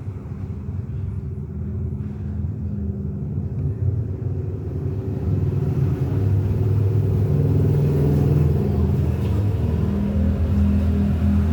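A motor running with a steady low rumble, getting louder about six seconds in.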